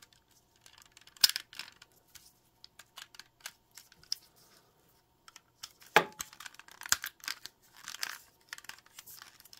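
Sharp clicks and light rustling from a Moshow Toys robot figure's spring-assisted shield piece being worked open and shut by hand. The loudest clicks come about a second in and about six seconds in.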